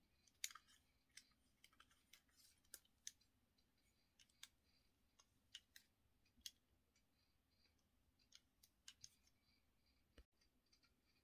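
Faint, irregular small clicks and ticks from hands handling a Helios 44-2 lens and turning its aperture ring, so that the blades open and close.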